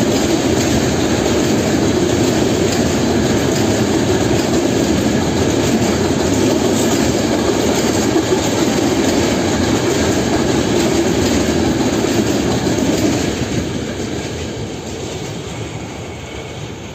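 Freight train of loaded container flat wagons rolling past, a loud steady noise of steel wheels on the rails. After about thirteen seconds the noise fades away as the last wagon goes by.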